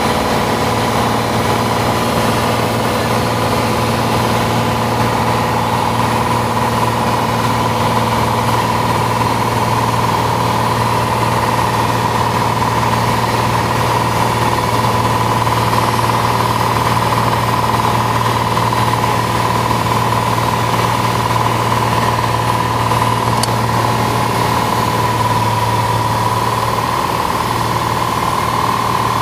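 Light aircraft's engine and propeller droning steadily in flight, heard from inside the cabin. The tone shifts slightly near the end.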